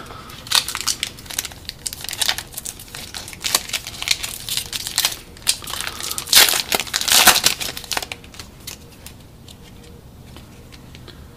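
Trading cards and their packaging handled by hand: an uneven run of rustles and crinkles, loudest about six to seven seconds in, then quiet for the last few seconds.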